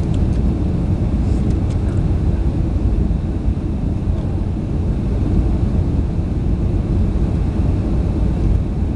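Airliner cabin noise: jet engines and airflow heard from inside the passenger cabin, a steady low rumble.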